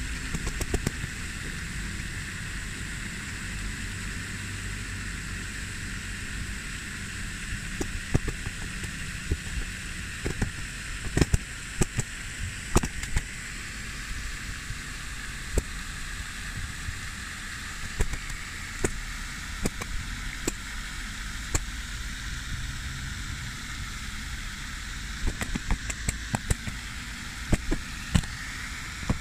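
Two mallard drakes fighting: scattered sharp flaps, knocks and scuffles, busiest about a third of the way in and again near the end, over a steady background hiss and low rumble.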